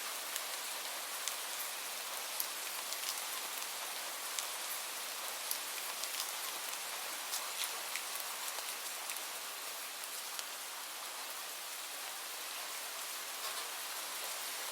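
Light rain falling steadily, an even hiss with scattered individual drops ticking sharply on a surface.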